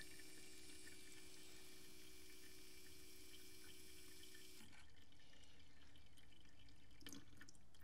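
Diesel fuel trickling faintly from the return line into a container while the jumped electric fuel pump primes the CJAA TDI's fuel filter housing: flow coming through shows the pump has got its prime. A faint steady hum runs with it and stops about four and a half seconds in.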